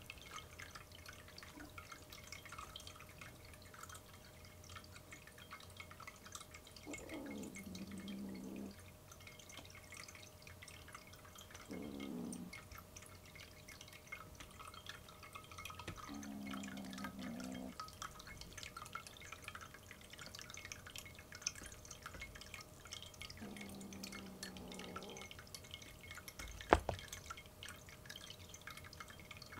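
A kitten growling low, a wary growl rather than a hiss, perhaps from being a little scared: four drawn-out growls of one to two seconds each. Behind them water trickles and drips steadily in a pet drinking fountain, and a single sharp knock near the end is the loudest sound.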